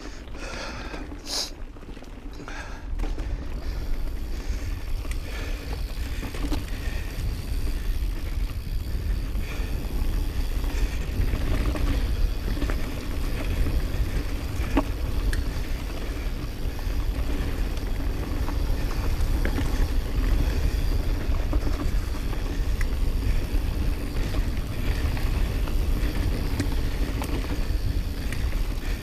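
Wind buffeting the microphone and the rumble of an Intense Recluse mountain bike's tyres rolling fast down a dirt singletrack, with scattered small knocks and rattles from bumps and roots. The rumble grows louder about four seconds in as the speed picks up.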